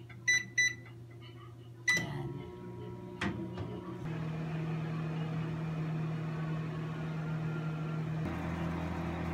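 Sharp Carousel microwave oven starting up: two short keypad beeps, a click about two seconds in as it starts, then a steady low hum of it running from about four seconds in.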